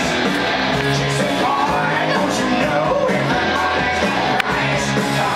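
Rock music with singing and guitar, steady and loud, with a brief click about four and a half seconds in.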